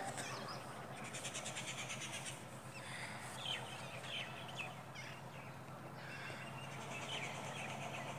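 Faint outdoor ambience: birds chirping in short calls and quick twittering over a low steady hum.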